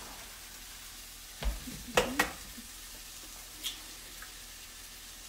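Eggs being cracked on a bowl: a soft knock about a second and a half in, then two sharp cracks in quick succession about two seconds in, and a light click a little later, over a steady faint hiss.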